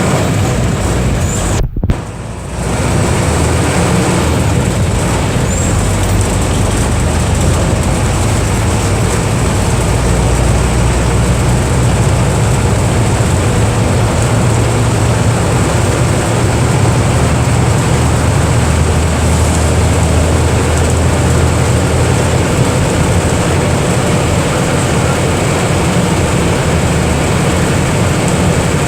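Mercedes-Benz OF 1318/51 bus's diesel engine running steadily, with a low, dense drone and a thin high whine above it. About two seconds in the sound drops out sharply for a moment.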